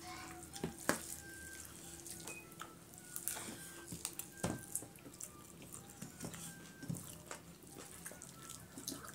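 Eating by hand: fingers squishing and scraping rice and chicken curry on steel plates, and chewing, heard as a scattered string of small wet clicks and squishes.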